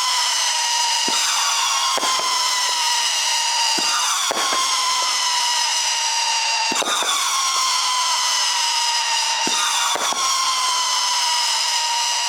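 Raccoon Fireworks Howling Nishiki 25-shot cake firing. Its shots' tails make a continuous, screeching howl, each whistle sliding slowly down in pitch, with a sharp pop every second or two as further shots fire.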